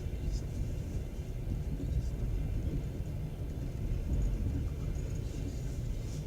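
Passenger train carriage rumbling steadily over the track, heard from inside the car, with a few faint, brief high squeaks.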